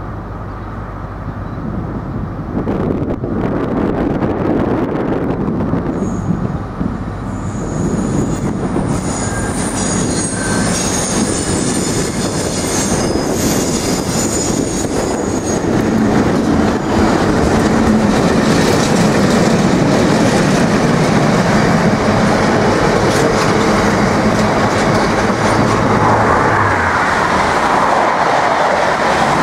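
A British Rail Class 60 diesel locomotive, with its eight-cylinder Mirrlees engine, approaches and passes hauling a train of tank wagons, growing steadily louder. High wheel squeal rings out for several seconds as it draws near. The long rake of tank wagons then rumbles past with wheel noise and clicks over the rail joints.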